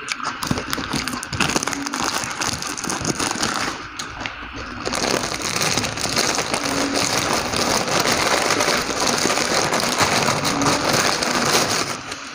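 Mouth-close chewing of a mouthful of instant noodles, then from about five seconds in a long stretch of loud crinkling and crackling as a plastic bag of crackers (kerupuk) is opened and a cracker pulled out.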